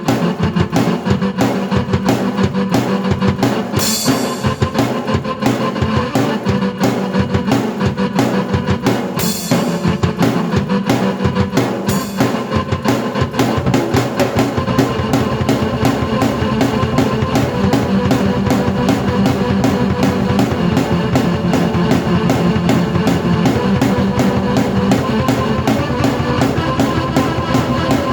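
Rock music played on drum kit and keyboard at once: a fast, driving, even drum beat under a sustained keyboard part, with cymbal crashes a few seconds in and twice more before the middle.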